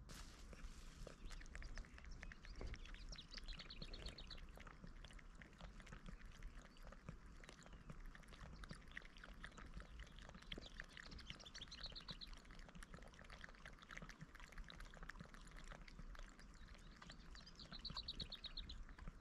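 Cat lapping water from a small dish: a faint, quick run of small wet clicks. A high, rapid trill comes and goes three times in the background.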